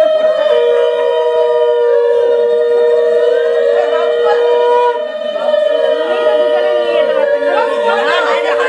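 Conch shells blown in long steady notes at two slightly different pitches, the lower one breaking off about five seconds in and starting again, with voices around them.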